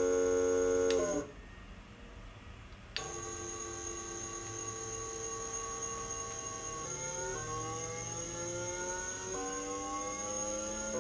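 Electric motor running with a steady whine made of several tones. It cuts out about a second in and starts again with a click about three seconds in. After that its pitch slowly creeps up and drops back twice.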